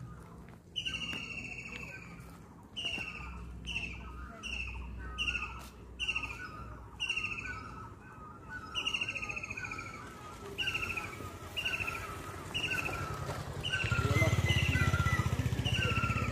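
Forest birds calling: a short falling call repeated about once a second, over a second, lower series of short notes. Great barbets are among the callers. A low rumble comes up near the end.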